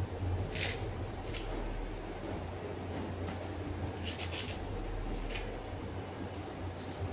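Steady low hum of a room air conditioner and fan, with a few short scratchy rustles scattered through it.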